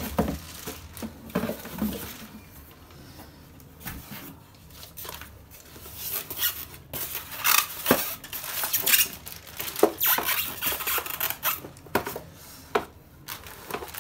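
Unboxing handling noise: sharp clicks, light knocks and rustling as a cardboard box, polystyrene packing, an induction cooktop and its plastic-bagged power cord are handled on a hard floor, busiest in the second half.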